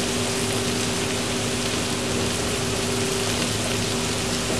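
Steady sizzling hiss of flour being stirred and toasted with a spatula in a hot black steel frying pan, over a steady low hum.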